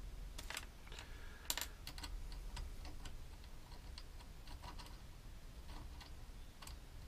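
Small metal hand tools tapping, clicking and scraping on the solenoid housing of a Land Rover TD5 starter motor while a seal is worked into place. The taps are light and irregular, with one sharper click about a second and a half in, over a faint low hum.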